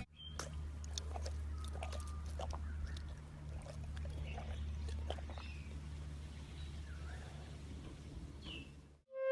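Faint animal sounds: a few short, soft chirps and scattered light clicks over a steady low hum.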